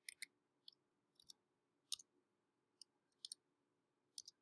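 Faint, irregular keystroke clicks on a computer keyboard, about a dozen scattered taps as a short date is typed.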